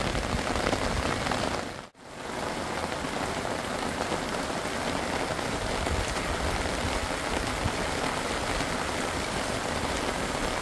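Rain falling steadily, an even hiss that drops out for a moment about two seconds in.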